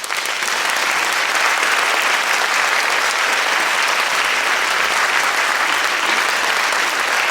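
Applause sound effect: a dense, steady crowd clapping.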